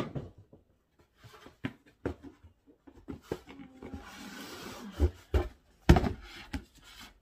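Cardboard handling: rustling and scraping as a shoebox is pulled out of a cardboard shipping carton, with a few knocks and thumps of the boxes knocking together near the end, the loudest about six seconds in.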